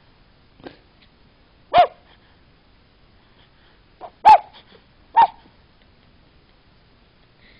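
Puppy giving a few short, high yips, three of them loud and each dropping slightly in pitch.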